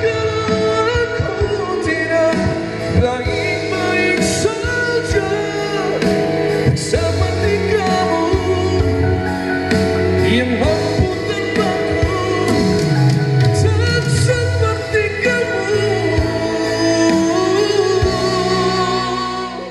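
Pop song with a man singing live through a wireless handheld microphone, played loud through a pair of 15-inch Recordingtech LT15A active PA speakers. The music stops abruptly at the very end.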